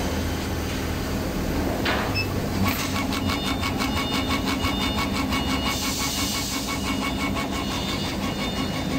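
1390 CO2 laser cutting machine at work: a steady low hum from its fans runs throughout. From about three seconds in, the stepper motors driving the laser head add a rapid, evenly pulsing whine as the head traces a cut.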